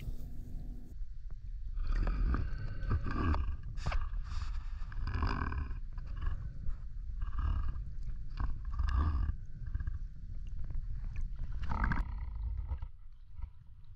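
Muffled rushing water and low rumble around a waterproof camera in the lake, with uneven surges of splashing and gurgling every second or two.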